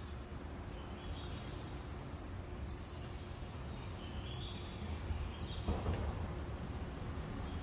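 Outdoor ambience: a steady low hum of distant traffic, with faint, brief bird chirps a few times.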